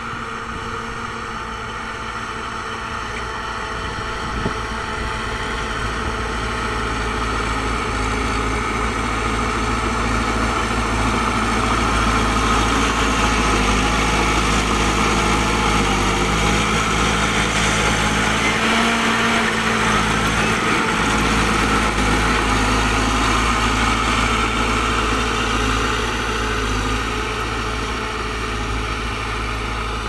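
Shantui crawler bulldozer's diesel engine running steadily under load as it pushes earth with its blade, growing louder through the middle and easing off near the end.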